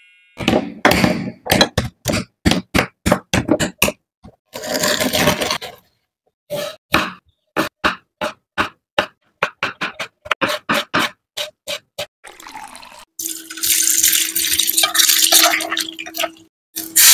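A kitchen knife cutting on a wooden chopping board in quick sharp strokes, slicing tomato, with a couple of short scraping or rustling stretches between the runs. About three quarters of the way through it gives way to a steady sizzle of hot oil as boiled quail eggs fry in a pan.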